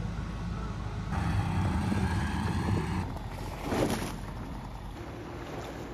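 Tiller outboard motor on a long aluminium jon boat, running with a low, steady drone; the sound changes abruptly about three seconds in, with a brief whoosh near four seconds, then continues as a quieter steady drone.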